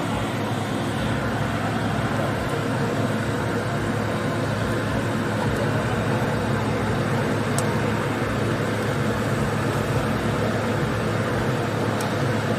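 A machine running with a steady low hum and a wash of noise, and two faint ticks, one about halfway through and one near the end.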